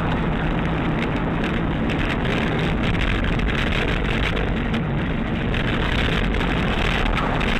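Steady engine and road noise of a car driving, heard from inside the cabin through the dashcam microphone.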